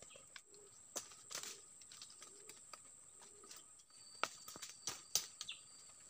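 Twigs and leaves rustling and snapping as a man works among shrub branches, with a few sharp cracks in the second half. Behind it, soft low calls repeat several times and a steady high hiss runs underneath.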